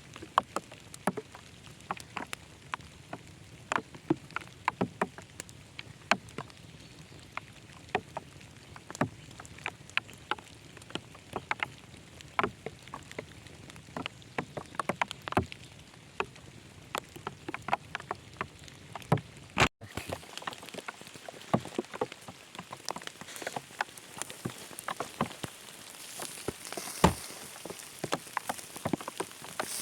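Rain: many irregular drops ticking on a surface over a steady hiss. A brief dropout about two-thirds through, after which the hiss is brighter.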